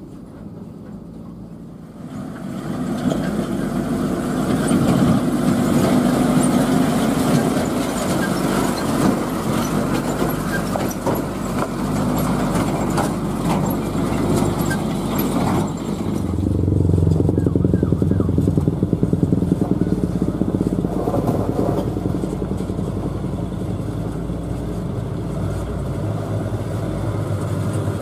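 Heavy dump truck engines working along a rough dirt track, louder about two seconds in, with clattering and knocks over the engine noise. From just past halfway, a deeper, throbbing engine sound takes over as another truck comes closer.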